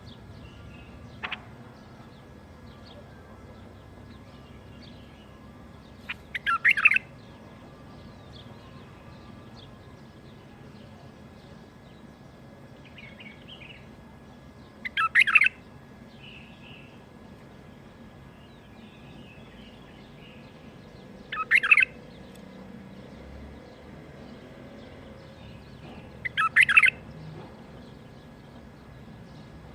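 Bulbul singing: four short, loud phrases spaced about five to six seconds apart, with faint chirps in between over a low steady background hum.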